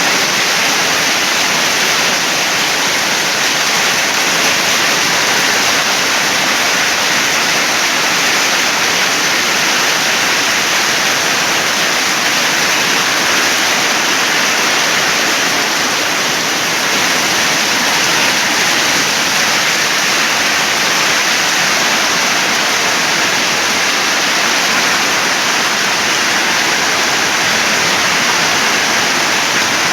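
Heavy rain pouring down in a storm, a steady, loud hiss without let-up.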